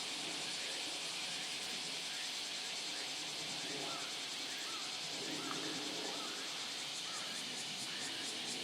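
Steady outdoor hiss with a few short bird chirps about halfway through. Near the end a faint, rapid, regular ringing starts: a railway level-crossing alarm beginning to sound.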